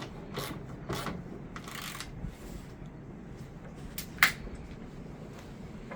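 Scraping and rubbing handling noises with a few short clicks, and one sharp click about four seconds in.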